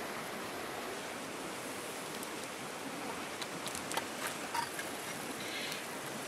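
Rushing river water, a steady even wash, with a few light clicks and knocks in the middle.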